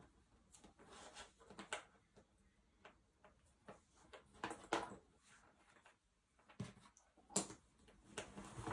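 Jigsaw puzzle pieces being handled on a table: scattered, irregular faint clicks and taps as pieces are picked up, set down and tried.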